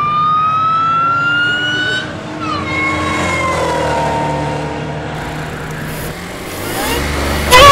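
Car supercharger whining as the engine accelerates, its pitch rising steadily, then dropping away about two seconds in and winding down lower. Near the end a much louder supercharger whine starts suddenly.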